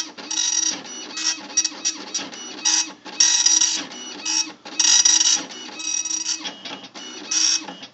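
Panasonic KX-P1624 24-pin dot matrix printer printing a test page, its print head buzzing across the paper in a run of short and long passes with brief pauses between lines. It stops suddenly near the end.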